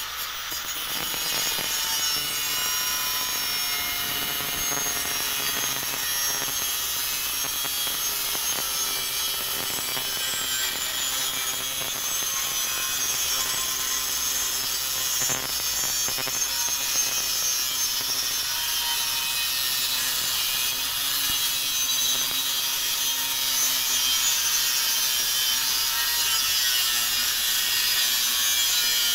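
Angle grinder's cutting disc cutting through steel bar: a steady high grinding with a thin motor whine that sags slightly in pitch under load about ten seconds in.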